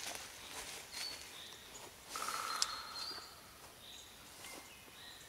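Outdoor woodland ambience with birds giving short high calls now and then. A little past two seconds in, a louder stretch of rustling ends in a sharp click, in time with chicken drumsticks being handled on a wire grill basket.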